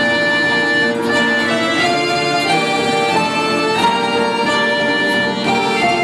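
Orchestra playing a piece of music: held notes and chords that move on every half second to a second, at an even loudness.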